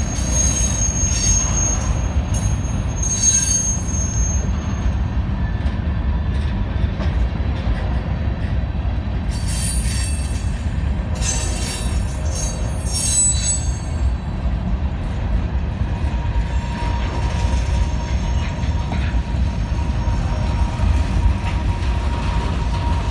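Covered hopper cars of a slow-moving freight train rolling past with a steady low rumble. High-pitched wheel squeal is heard in the first few seconds and again in bursts about ten seconds in.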